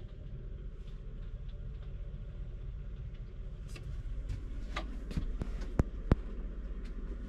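Rain on a motorhome's roof, heard from inside as a steady low rumble, with scattered taps from about four seconds in and two sharp knocks close together near the six-second mark.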